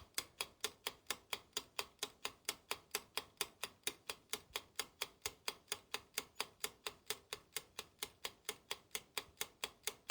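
Rapid, even clock-style ticking, about four and a half ticks a second, with each tick sharp and bright. It starts and stops abruptly out of dead silence, as a countdown-timer sound effect does.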